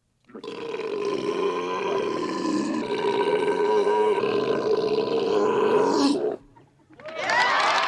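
A single long, loud human belch held at a steady pitch for about six seconds, pushed out as a belching-contest effort. After a short pause a crowd breaks into cheering and shouting near the end.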